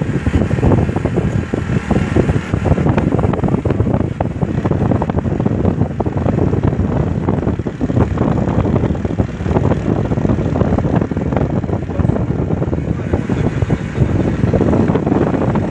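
Loud, steady wind noise on the microphone over the running of a vehicle moving at speed across rough ground, with many small knocks throughout.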